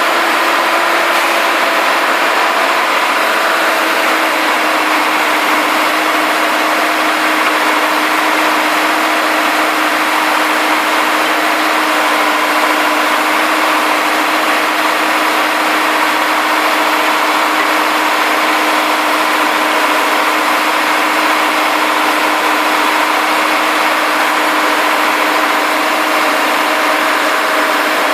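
ZGYX452 integrated DTH surface drill rig running, its 191 kW engine giving a loud, steady drone with one constant tone and no change in pitch or level.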